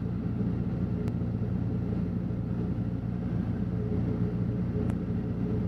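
Piper Warrior's engine and propeller running steadily at part power, heard from inside the cockpit as an even drone. A few faint clicks are heard over it.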